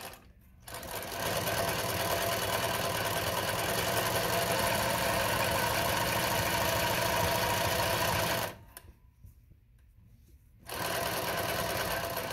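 Consew CN2053R-1A industrial zigzag sewing machine running and stitching zigzag through fabric. It makes one steady run of about seven seconds, stops, then starts again about two seconds later.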